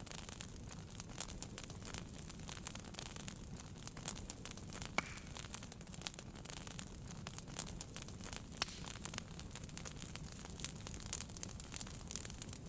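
Wood fire crackling in a fireplace: a steady stream of small pops and snaps over a low rumble, with one sharper pop about five seconds in.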